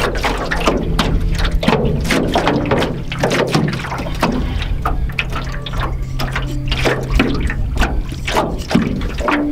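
Small waves slapping and lapping irregularly against the hull of an aluminium canoe, a quick run of splashy knocks, over a steady low hum.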